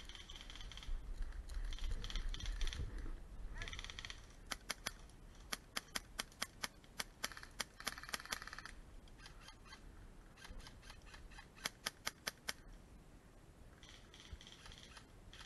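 Airsoft guns firing: two strings of sharp snapping shots at about three to four a second, one from about four seconds in and another near the end, with rustling of movement through dry pine needles at the start.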